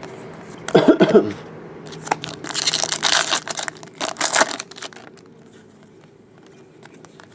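Foil wrapper of a 2014 Bowman Draft baseball card pack crinkling and tearing as it is opened by hand, in two noisy rustling bursts between about two and a half and four and a half seconds in.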